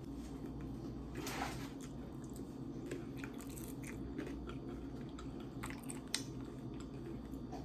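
Close-miked chewing and biting on food, with irregular small crunchy, wet clicks of the mouth.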